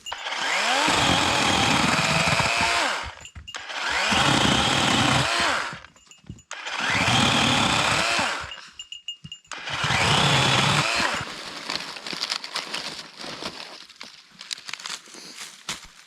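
Battery-powered chainsaw cutting wood in four runs of about two to three seconds each, its motor pitch dipping and rising as the chain loads in the cut. After the last cut come scattered clicks and crackles of wood being handled.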